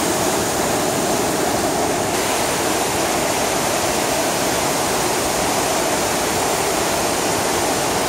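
Düden Waterfall's cascades and white-water rapids, running at high flow, make a steady, unbroken rush of falling and churning water.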